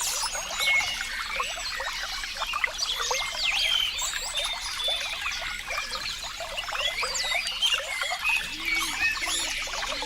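A small stream trickling and bubbling steadily, with birds chirping over it. A few short, low calls come near the end.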